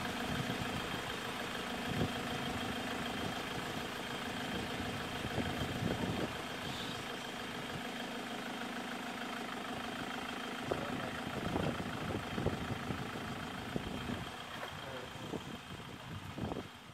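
Engine of an open safari vehicle idling steadily, close to the microphone on its bonnet, with a few low thumps. The engine sound stops right at the end.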